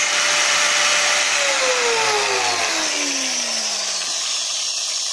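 Small electric tool's abrasive cut-off disc grinding a metal key blank to cut its teeth: a loud, harsh grinding hiss over the motor's whine, which falls steadily in pitch from about a second and a half in.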